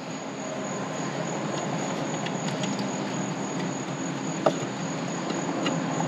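Steady background hiss with a thin, high, continuous whine, and a faint plastic click about four and a half seconds in as a rocker switch is worked into the dash switch panel.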